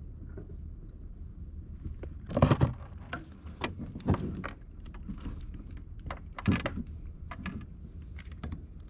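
A series of sharp knocks and rattles, about six in all and loudest about two and a half seconds in and again near six and a half seconds, over a steady low rumble.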